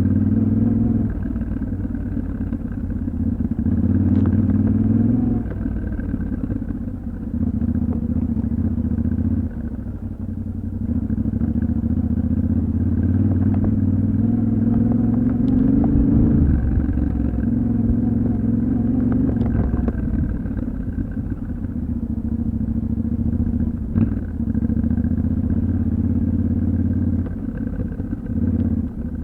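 Yamaha Ténéré 700's 689 cc parallel-twin engine pulling along off-road, the throttle opening and rolling off every few seconds so the engine note swells and drops. A few sharp clicks and knocks come through over the engine.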